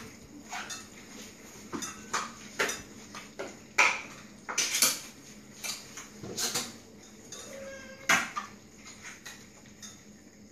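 Metal food bowl clinking and knocking irregularly as a crowd of Sphynx cats eat from it at once. The loudest clinks come a little under four seconds in, around five seconds and about eight seconds in.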